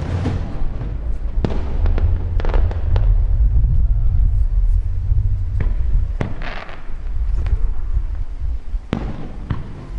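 Fireworks display: shells bursting one after another with sharp cracks at irregular intervals over a continuous deep rumble.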